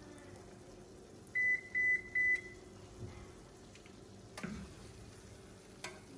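Three short, high electronic beeps in quick even succession from a kitchen appliance's beeper, followed a couple of seconds later by a soft knock and then a light click.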